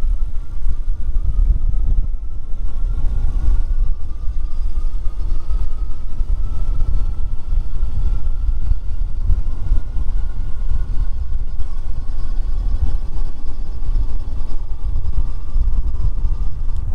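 Cyrusher XF900 e-bike's electric motor running at pedal assist level 3 and spinning the rear fat-tire wheel. It makes a whine that rises slowly in pitch over the first several seconds and then holds steady, over a steady low rumble.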